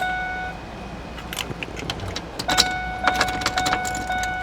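Keys jingling and clicking in a pickup truck's ignition, with a steady electronic warning chime tone that stops about half a second in and comes back about two and a half seconds in.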